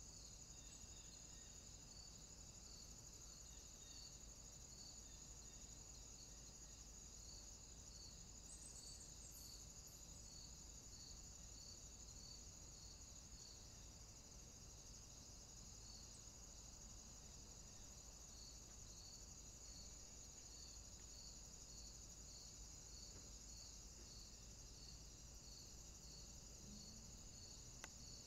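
Faint insect chirping, like crickets: a steady high trill with short chirps repeating at an even pace.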